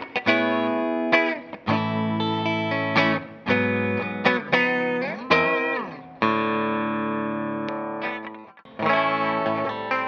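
Clean electric guitar, a Bacchus Universe Series Telecaster-style guitar on its middle pickup position, through an amp setup with reverb and delay. It plays picked chords and single-note lines, bends a note about five seconds in, and lets a chord ring out and fade. Playing resumes near the end on the bridge pickup.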